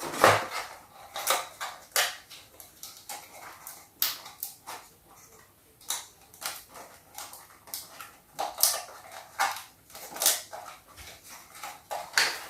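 Plastic packaging crinkling and small plastic toy pieces clicking as they are handled and taken out of a toy box, in irregular short rustles and clicks.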